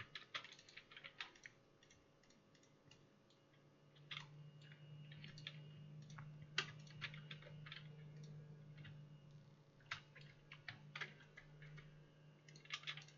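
Faint, scattered clicks of a computer keyboard and mouse being used. A low steady hum comes in about four seconds in and fades near the end.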